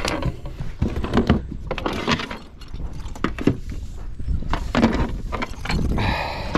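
Irregular clattering and knocking as a freshly landed largemouth bass and fishing gear are handled, over a constant low rumble.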